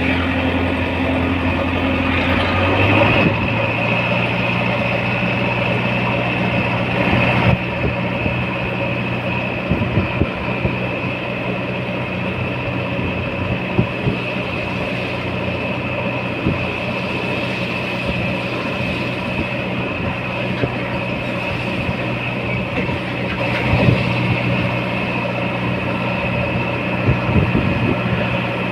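JCB 3DX backhoe loader's diesel engine running steadily, its engine note changing about three seconds in, with a few scattered knocks.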